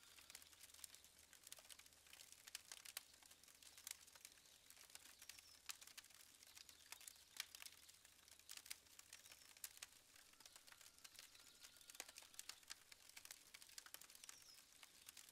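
Wood campfire crackling faintly: irregular sharp pops and snaps from the burning logs, with a few faint bird calls.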